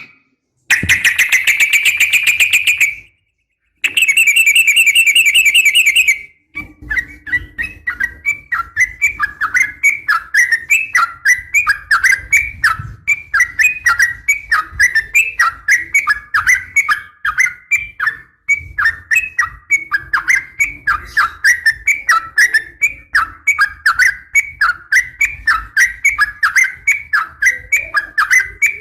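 Yellow-vented bulbul (trucukan) calling, presented as a female calling to a male. First come two rapid trills broken off by abrupt silences. Then a long run of quick, falling chattering notes follows at about two or three a second.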